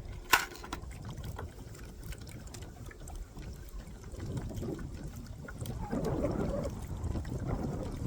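Water lapping and trickling against a small boat's hull, with one sharp click about a third of a second in. The water sound grows louder and busier from about halfway through.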